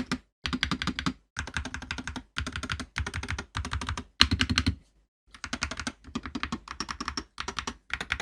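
Typing on an Akko MonsGeek FUN60 Pro 60% keyboard with pre-lubed Akko Glare Hall-effect magnetic switches and PBT keycaps: rapid keystroke clicks in short bursts, with brief silent gaps between them.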